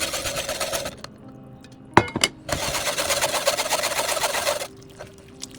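Creamy panna cotta mixture pouring through a mesh strainer into a bowl, a steady rushing pour that stops about a second in. A sharp knock and a click in the pause, then the pour runs on for about two more seconds before stopping.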